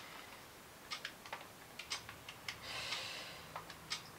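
Keys of a handheld calculator being pressed: a series of faint, irregular clicks. A soft breath can be heard around the middle.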